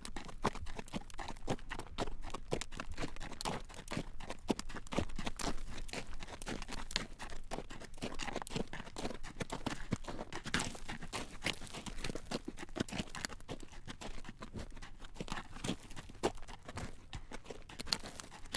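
Horse's hooves clip-clopping on a road at a walk as it draws a carriage: a steady stream of sharp, uneven clacks, several a second.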